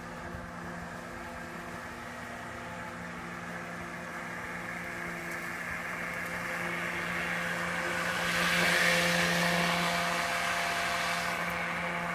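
Hart cordless electric lawn mower running and cutting grass: a steady electric motor and blade hum that grows louder as the mower approaches. It is loudest about eight to eleven seconds in, with a hiss added as it passes close by.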